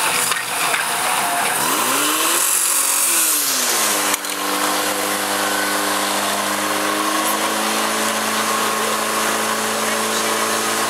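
Portable fire pump's petrol engine running hard, its pitch sweeping up and down, then holding a steady high-revving note from about four seconds in while it pumps water out through the hoses.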